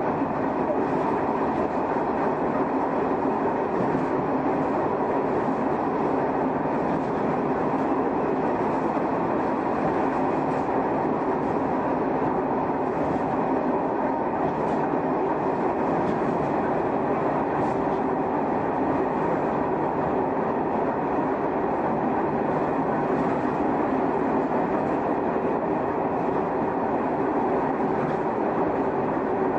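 Shin-Keisei car 252, an electric train with nose-suspended traction motors, running at a steady speed as heard from inside the cab: a steady drone of motor, gearing and wheels whose pitch holds level, with occasional clicks of wheels over rail joints.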